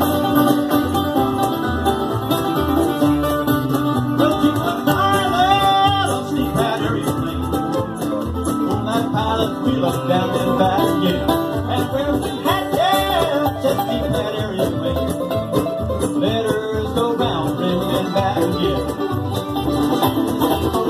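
Bluegrass band playing live: banjo, acoustic guitar and mandolin, with a man singing the lead through parts of it.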